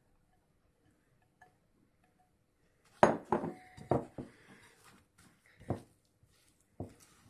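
A spatula knocking and scraping against a glass mixing bowl while stirring a thick cottage-cheese mixture: a run of sharp, ringing clinks at uneven intervals, starting about three seconds in after near quiet.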